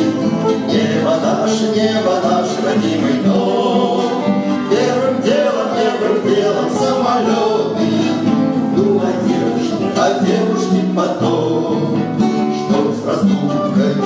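Two classical acoustic guitars played together, with male voices singing along in places.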